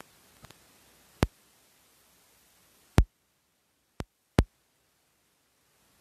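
Near silence broken by four short, sharp clicks: one a little over a second in, one about halfway through, and two close together near the end.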